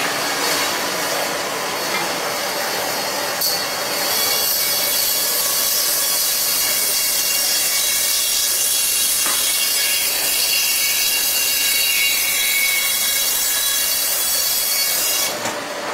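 Band saw cutting through frozen tuna: a steady, high hiss from the blade running through the frozen fish.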